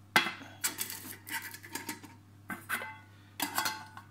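Tatonka stainless steel camp cook set clinking and scraping as the pot, frying pan and bowl are nested together: a run of several sharp metal knocks, each with a brief ring.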